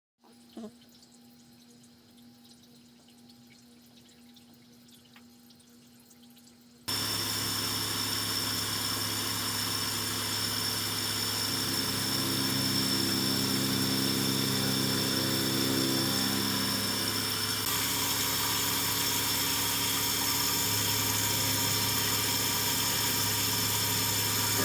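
CNC milling machine working an aluminium part: after a faint hum and a single click, the machine's steady running noise with whining tones comes in abruptly about seven seconds in and goes on, its pitch shifting a little as the cut goes on.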